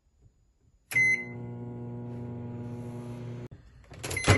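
Microwave oven control panel beeps once about a second in as start is pressed, and the oven starts running with a steady electric hum. The hum cuts off abruptly, and near the end comes a louder beep together with a knock as another button is pressed.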